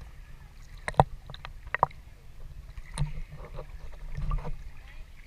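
Sea water sloshing with a low rumble, broken by sharp knocks about a second in, just before two seconds and at three seconds, and a louder surge of rumble near the end.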